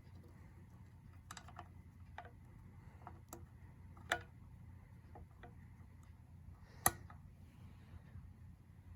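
Scattered light clicks and taps, with two sharper clicks about four and seven seconds in, over a faint low hum; no vacuum cleaner motor is running.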